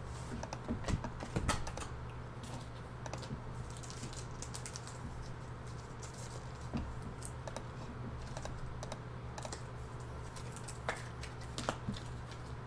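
Typing on a computer keyboard: quick, irregular key clicks, over a low steady hum.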